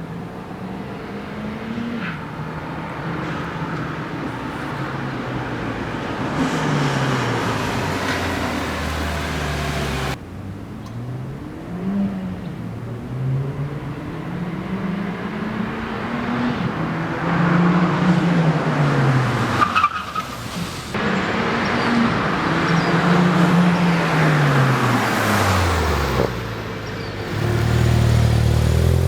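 Ford Fiesta ST's turbocharged 1.6-litre four-cylinder running through a COBB cat-back exhaust, revving and accelerating over and over, the note climbing and then dropping each time. The sound breaks off abruptly twice.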